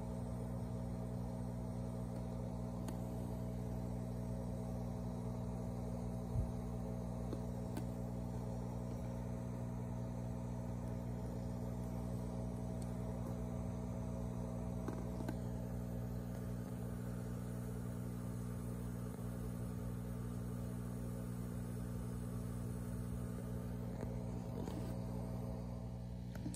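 Steady low electrical hum of aquarium equipment, made of several even tones, with one sharp click about six seconds in.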